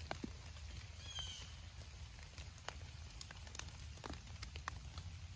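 Faint woodland ambience: scattered light ticks and drips, like raindrops falling on leaves, with a short high bird chirp about a second in.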